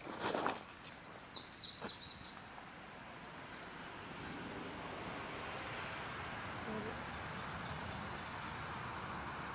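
Steady high-pitched drone of insects, with a few short chirps about a second in and a brief sharp noise right at the start.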